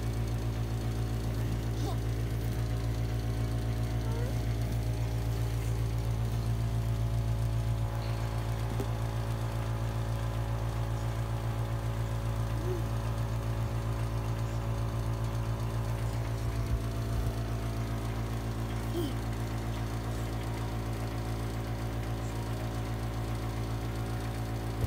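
Steady machine hum, as of a motor running, with many even tones that hold the whole time; a few faint short voice-like glides sit over it.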